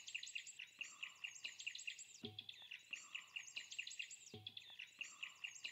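Faint birdsong: quick runs of high chirps repeating about once a second, with two soft low thumps partway through.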